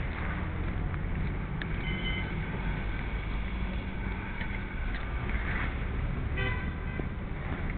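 Urban road traffic with a steady low rumble, recorded through a small built-in camera microphone while walking fast, and a short vehicle horn toot about six and a half seconds in.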